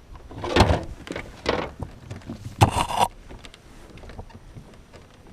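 A few dull thumps and knocks against a kayak's hull and gear, loudest about half a second in and again near three seconds in, followed by quieter scattered clicks.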